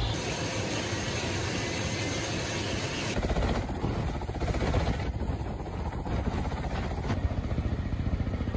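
Military helicopters flying low, their rotor blades chopping loudly. The sound changes abruptly twice, about three and seven seconds in, as the footage cuts from one helicopter to another.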